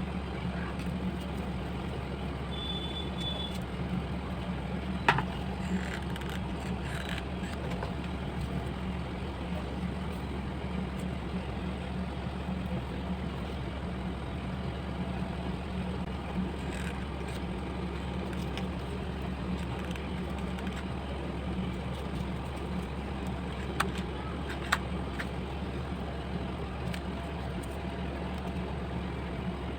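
A steady low hum with a few sharp clicks, two of them close together near the end.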